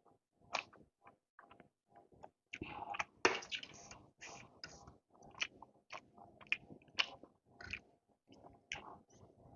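Close-up eating sounds: chewing with irregular wet mouth smacks and clicks, and a longer, louder noisy stretch about three seconds in.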